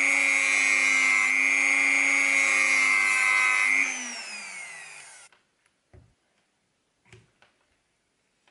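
Handheld rotary tool with a small cut-off wheel running at a steady high whine as it cuts into the thin wood of a miniature cabinet. About four seconds in it is switched off and the whine falls in pitch as the wheel spins down, followed by a few light clicks of the tool being handled.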